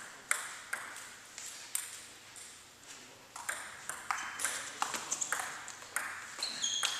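Table tennis rally: sharp clicks of a celluloid ball striking rubber paddles and the table, the hits coming quicker in the second half.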